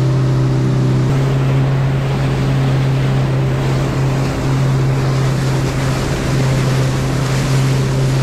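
Boat's engine running steadily at cruising speed, a loud low drone, with water rushing along the hull and wind on the microphone.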